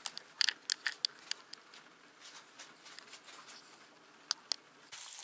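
Flour-dusted pink salmon frying in hot oil in a pan: scattered sharp crackles and pops, thickest in the first second or so and a pair near the end, with a steady sizzle setting in just before the end.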